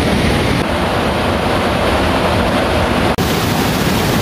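Rushing mountain stream pouring over boulders: a steady rush of water that breaks off for an instant a little past three seconds in, then carries on.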